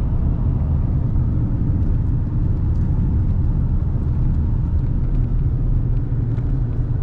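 Steady low rumble of a vehicle driving along a road: engine and tyre noise holding even, with no change in speed.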